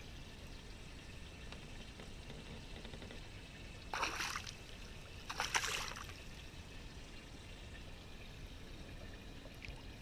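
A hooked walleye splashing at the water's surface beside the boat, twice: two short splashes about four and five and a half seconds in.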